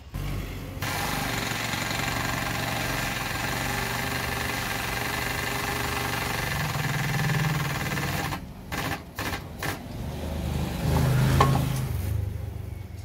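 Air-over-hydraulic foot pump running with a steady mechanical chatter and hiss, driving a hydraulic ram that presses a car's subframe bushing. It stops and restarts in several short spurts about eight seconds in, then runs again and gets louder before easing off near the end.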